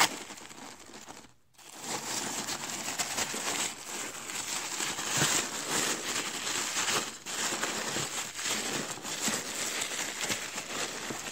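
Tissue paper rustling and crinkling as a wrapped package is handled and unwrapped. A brief sharp snap at the very start, a short lull about a second in, then continuous crinkling.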